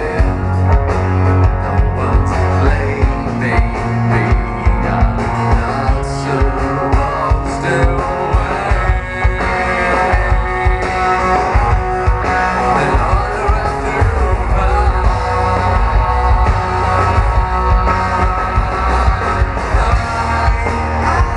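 Rock band playing, with electric guitars and drums keeping a steady beat.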